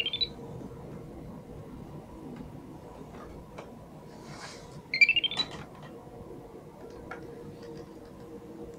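Arduino Simon Says game's beeper playing a fast rising run of about seven short electronic notes about five seconds in, with the end of a similar run right at the start. A few faint clicks sound between the runs.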